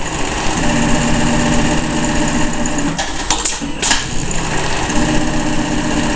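Juki AMS-223C computer-controlled pattern sewing machine stitching at speed in its automatic cycle, in two runs of a couple of seconds each. Between them, about three seconds in, comes a brief pause with a few sharp clicks before the stitching starts again.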